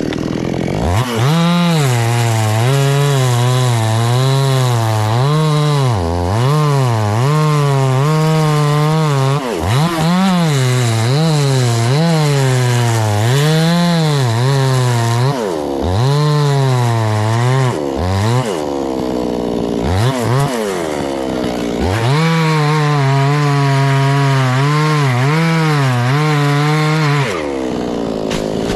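Chainsaw cutting into a coconut palm trunk, its engine pitch wavering up and down as the chain bites and frees, sagging low several times midway, then stopping just before the end.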